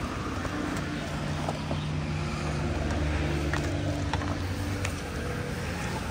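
A motor running steadily with a low hum, swelling a little in the middle, and a few light clicks and clinks of tools over it.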